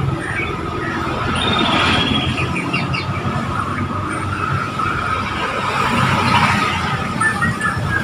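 Steady road traffic noise, with a few short high calls of caged white-rumped shamas (Bornean murai batu) over it about two to three seconds in.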